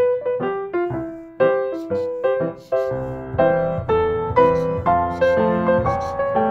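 Background piano music: a gentle melody of single notes, several a second, each struck and fading.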